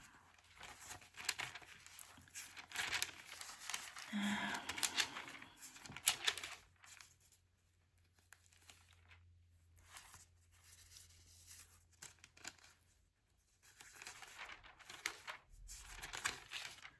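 Paper rustling and crinkling in spurts as thin book pages are handled and turned, with a quieter stretch in the middle.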